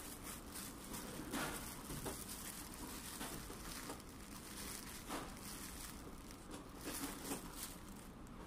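Faint crinkling and rustling of white plastic courier mailer bags being handled, in short, irregular bursts.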